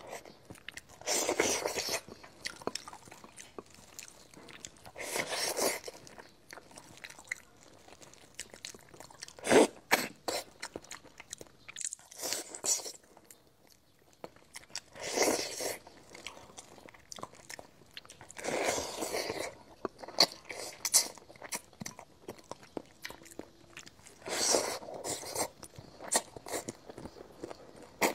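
Close-miked eating of chili-sauced salmon head: wet sucking and slurping bursts every few seconds as flesh is drawn off the pieces, with chewing and mouth clicks in between.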